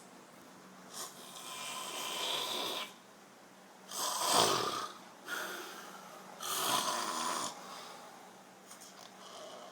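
A man snoring heavily: a long rasping breath, then a loud deep snore about four seconds in and another strong one about two seconds later, with weaker breaths between.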